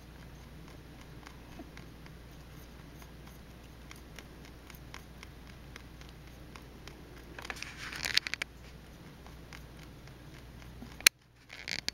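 Pet rabbit stirring in the hay of her carrier: faint scattered clicks and light rustling, a louder spell of rustling about two-thirds of the way through, and a sharp click near the end.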